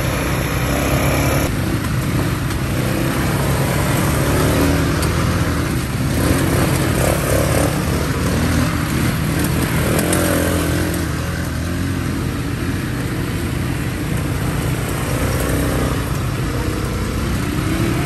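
ATV engine running steadily as it is ridden, its pitch rising and falling a little with the throttle.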